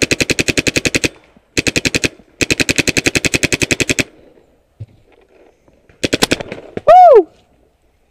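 Paintball marker firing in rapid bursts of about fifteen to twenty shots a second: three long strings in the first four seconds and a short one about six seconds in. Just after the last burst comes a very loud, short sound that slides down in pitch.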